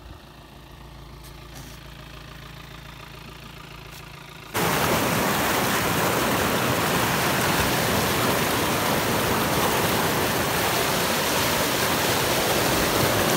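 A faint steady low hum, then about four and a half seconds in an abrupt start of loud rushing water: a stream pouring over rocks in white-water rapids.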